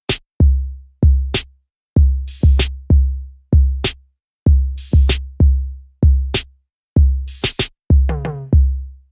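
Electronic intro music: a sparse drum-machine beat of deep, booming kick drums with sharp snare or clap hits and a few splashes of cymbal, with a short run of pitched notes near the end.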